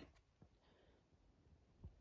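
Near silence: quiet room tone, with one faint low thump near the end.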